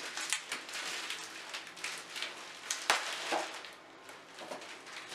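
Clear plastic packaging crinkling and crackling as it is pulled open by hand, with one sharp click about three seconds in.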